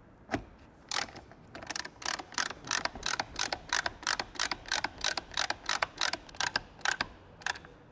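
Hand nutsert (rivet nut) tool being worked on a vehicle's A-pillar: a quick, even run of sharp clicks, about three a second, as the nutsert is clamped up in its hole.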